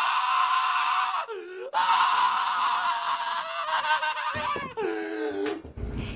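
A person screaming at full voice: one long, high scream that breaks off briefly about a second in, then carries on and drops in pitch near the end. It cuts off abruptly and gives way to the low rumble of a car driving.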